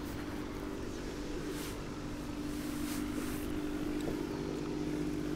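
Steady motor drone, a hum of several even tones that holds unchanged, over light water and wind noise, with a couple of brief hisses.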